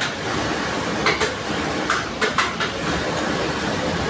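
Industrial sewing machine running with a steady rattling clatter, with a few sharp metallic clicks about a second in and again around two seconds in.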